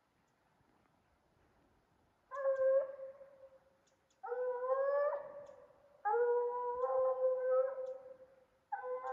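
Redbone hounds baying on a mountain lion's track: four long, drawn-out bawls, the first about two seconds in and then one every two seconds or so.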